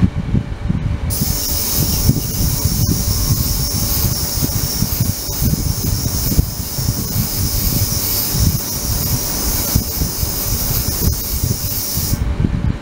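Ultrasonic cleaning tank running: a steady high hiss from the water switches on about a second in and cuts off suddenly near the end, over a constant low rumble.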